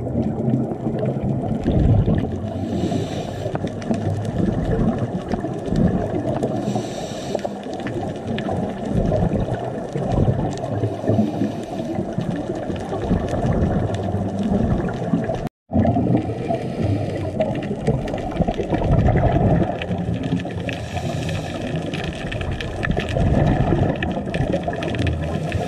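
Muffled underwater rumble from a camera in a sealed dive housing, with a hissing burst of scuba regulator exhaust bubbles about every four seconds. The sound cuts out for an instant about halfway through.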